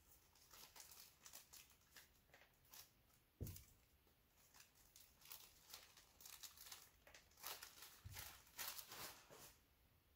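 Faint crinkling and tearing of small plastic parts packets being opened, with two soft knocks, one about three and a half seconds in and a duller one near eight seconds.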